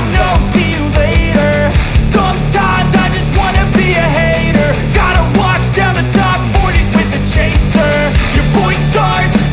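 Background rock music with a steady driving beat, distorted guitars and what looks like a sung melody line.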